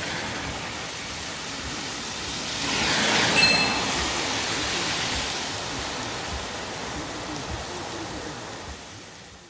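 Heavy rain falling, a dense steady hiss. About three seconds in, a whoosh swells up and a short bright chime rings out. The rain then fades away near the end.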